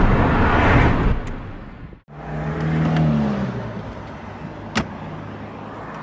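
Nissan car's engine and road noise heard inside the cabin as the car slows. After a sudden cut about two seconds in, a low engine hum sinks in pitch and fades, and a single click sounds near the end.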